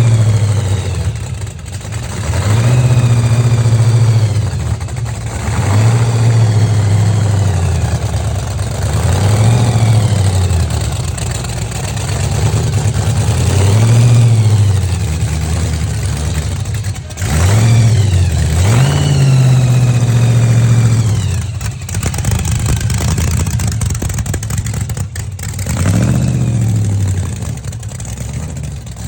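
Hot rod engines revving and accelerating, one car after another, each swelling up and falling away in pitch over two or three seconds, about seven times.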